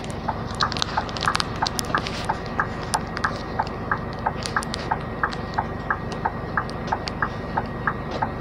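Cab interior of a Scania 440 truck with its six-cylinder diesel running steadily. Over it, a regular alternating tick-tock about three times a second, plus scattered sharp clicks of the phone being handled.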